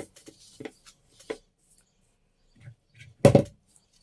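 Small taps and clicks of paper and craft supplies being handled on a table, with one louder knock a little after three seconds in.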